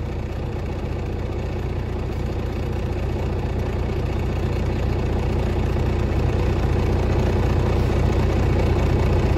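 Diesel truck engine idling, heard from inside the cab: a steady low hum that grows gradually louder. It idles while the air-brake governor cut-in test is timed.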